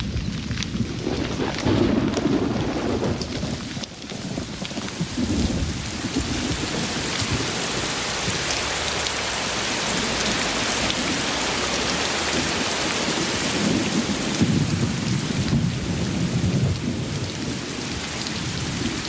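Steady heavy rain with low rolls of thunder, one about two seconds in and a longer one near the end.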